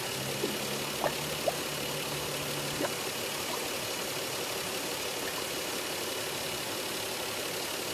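Car engine idling steadily, run after a coolant refill to circulate coolant through the cooling system while air is burped out. A few faint short pops come in the first three seconds.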